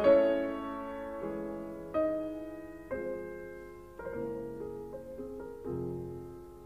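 Background music: slow, gentle solo piano, single notes and chords struck about once a second and left to ring and fade.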